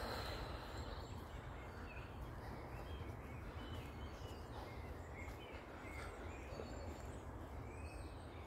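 Wild birds chirping and singing, many short calls scattered throughout, over a steady low rumble.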